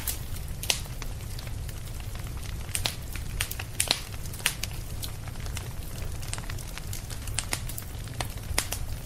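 Firewood burning in a stone hearth stove, crackling with irregular sharp pops over a low steady rumble.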